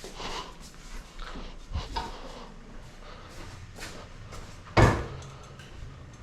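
Metallic clunks from the old exhaust being worked free of its hangers: a couple of light knocks about two seconds in, then one loud clunk about five seconds in.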